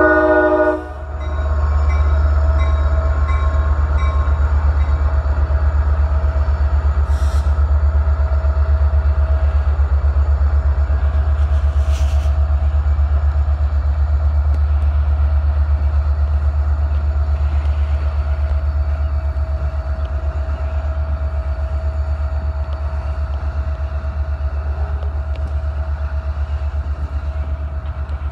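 Diesel freight train horn ending about a second in, then the steady low rumble of the CSX locomotive and its autorack cars rolling past.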